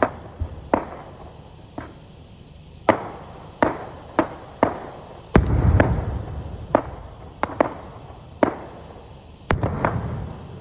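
Aerial fireworks shells bursting in a steady run of over a dozen sharp bangs, each trailing off in a rumble. The heaviest bursts come about five seconds in and again near the end.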